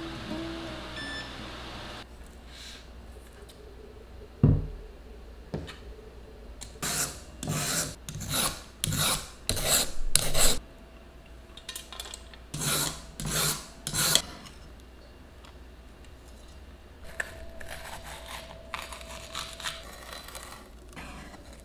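A carrot is shredded into thin strips with a julienne peeler: a quick run of about seven rasping strokes, then three more after a short pause. Near the end, a knife slices green pepper into strips on a wooden cutting board with soft taps and scrapes. A single thump comes about four seconds in.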